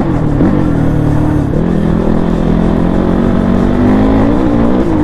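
Hero XPulse 200's single-cylinder engine running steadily under way. Its pitch dips briefly about half a second in and climbs again near the end as the throttle changes.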